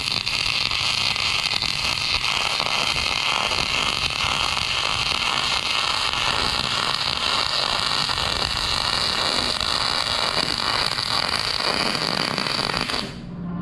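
Wire-feed (MIG) welder arc crackling and hissing steadily while running a continuous weld bead, likely a second pass along a bucket wear strip. The arc cuts off suddenly about thirteen seconds in.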